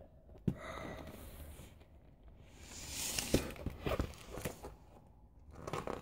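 Handling noise from a spiral-bound paper book: paper rustling and a few light knocks as it is moved and its pages are turned, with a sharp click about half a second in and the louder rustling and knocks in the middle.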